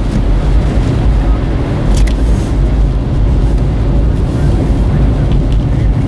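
Steady low rumble of a vehicle driving on a snow-covered highway: tyre and road noise mixed with wind, with a couple of brief clicks about two seconds in.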